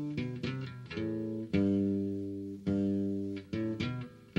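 Background music: a solo acoustic guitar picking notes and strummed chords, each one struck and ringing out before the next, several a second.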